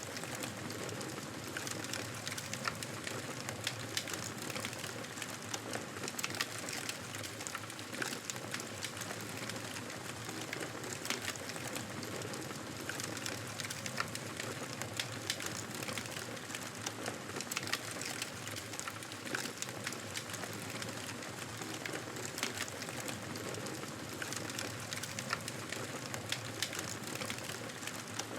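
Wood fire burning with a steady crackle and many small, sharp snaps scattered throughout.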